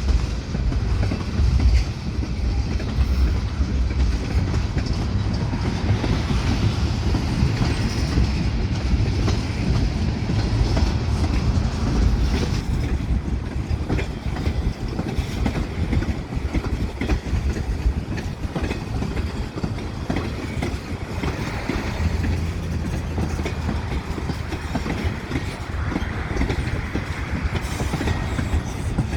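Train rolling past at steady speed, its car wheels clattering and rumbling over the rails.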